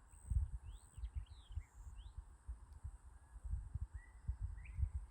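Footsteps and phone-handling thumps of a person walking on a woodland trail, with a few short high chirped whistles about a second in and a brief rising whistle near the end, which the walker takes for somebody whistling.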